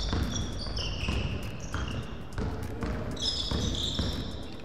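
Basketball being dribbled on a wooden gym floor, with sneakers squeaking sharply on the floor as players cut and defend.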